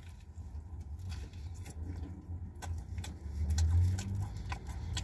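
A man chewing a big mouthful of pizza, with scattered small mouth clicks and smacks, over a steady low hum in a car cabin.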